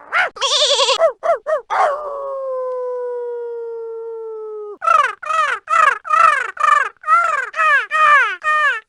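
Animal calls from a sound-effects collection. First come wavering and short calls, then one long held call slowly falling in pitch that cuts off suddenly about five seconds in. Then a rapid series of short calls, each falling in pitch, about three a second.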